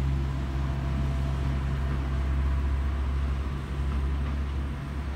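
Diesel multiple unit's engine running with a steady low drone, easing slightly near the end.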